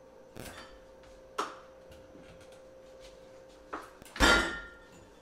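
Refrigerator door being handled: a light knock about a second in, then the door shut with a loud thud and a short ringing rattle about four seconds in.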